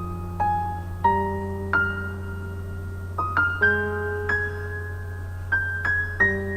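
Piano music: a slow melody of single struck notes over held lower notes.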